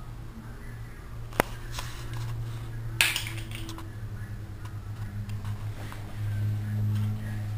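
Small knocks and clicks from a toddler handling plastic and plush toys on a tiled floor: one sharp click about one and a half seconds in and a short clatter about three seconds in, over a steady low hum.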